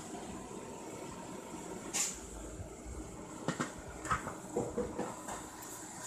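Aluminium steamer pot lid being set back on, with a sharp metal clank about two seconds in and several lighter knocks after, over a steady hiss of steam from the pot.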